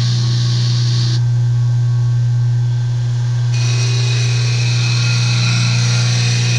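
Washing-machine motor with a circular wire brush running, giving a loud, steady hum. A high hiss over it drops away about a second in and comes back a little past the middle.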